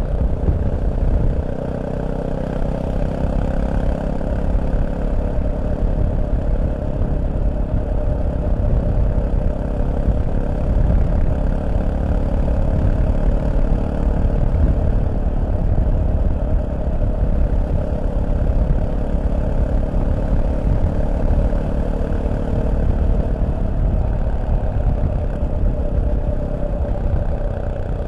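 Fantic Caballero 500's single-cylinder engine running steadily at an even pace, with a deep rumble and no big changes in revs.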